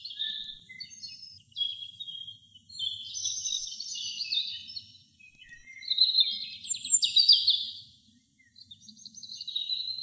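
European robin singing: a run of high, thin warbled phrases with quick trills, broken by short pauses. The loudest phrases come about six to seven seconds in.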